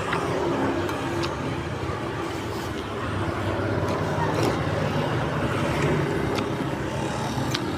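Steady road traffic noise: passing motor vehicles with a low engine hum, and a few faint clicks.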